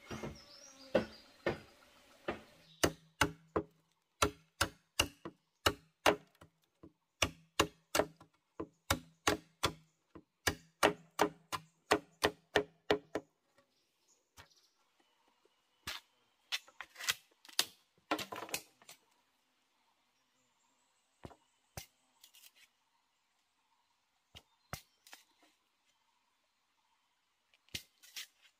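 A tool striking bamboo over and over, about two sharp blows a second for roughly the first dozen seconds. After that come scattered single strikes and a short quick flurry.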